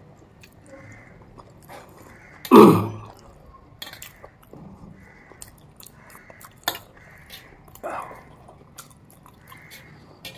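Close-up eating sounds: wet chewing and small mouth clicks while aloo paratha with curd and peanut chutney is eaten. About two and a half seconds in there is one loud throaty sound falling in pitch, and a smaller one near the eighth second.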